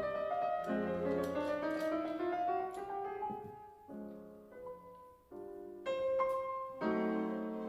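Background piano music: notes and chords at a gentle pace, thinning out about halfway through and coming back fuller near the end.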